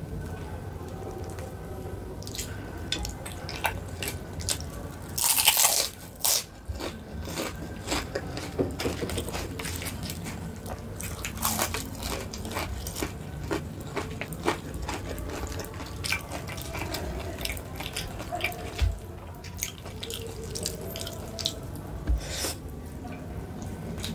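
A person eating close to the microphone: scattered small clicks and crunchy bites, with one loud crackly burst about five seconds in, over a steady low hum.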